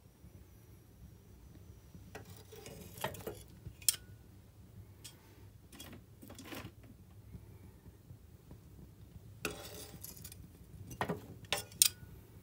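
A fire burning in a solid-fuel stove, crackling and popping in two spells of sharp clicks. The loudest clicks come about four seconds in and near the end, some with a brief metallic ring.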